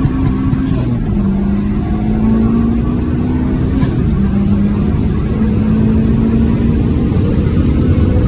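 A car engine running hard under acceleration, its pitch climbing and dropping back twice, as at gear changes.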